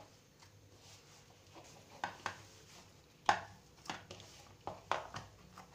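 Hands kneading soft wheat-flour dough mixed with grated radish in a plastic bowl. From about two seconds in come irregular soft pats and knocks as the dough is pressed and turned against the bowl.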